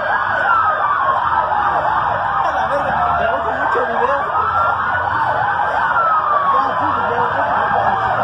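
Several emergency-vehicle sirens wailing at once, slow rising and falling sweeps overlapping one another with faster warbling tones mixed in.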